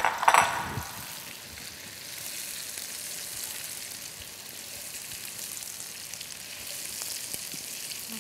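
Boiled baby potatoes and small onions sizzling steadily in hot oil in a non-stick pan as they are stirred with a silicone spatula, with a brief louder clatter in the first second.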